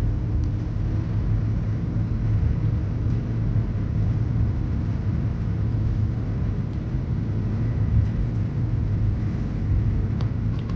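Steady low rumble of a car driving, road and engine noise with no change in pitch.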